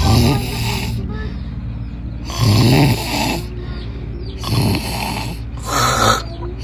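A person snoring loudly in sleep: four harsh snores a second or two apart, over a steady low hum.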